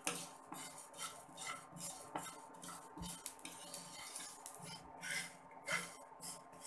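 Wooden spatula scraping and stirring fenugreek and fennel seeds around a dry non-stick wok as they dry-roast, in repeated short strokes.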